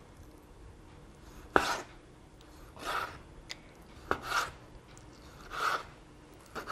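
A knife slicing through raw chicken breast and striking a wooden cutting board: four short strokes, about one every second and a half, the first the sharpest.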